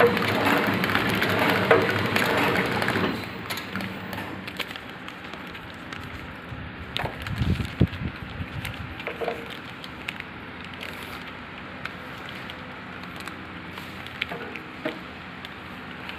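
Pillow-type flow-wrap packing machine running, with a loud crackling of plastic-film soap packs being handled for about the first three seconds. After that it drops to a quieter steady machine hum with scattered clicks and light knocks.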